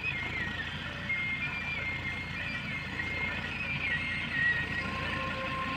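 John Deere tractor's diesel engine running steadily under load while pulling a plough through the soil. A thin melody of long held high notes plays over it.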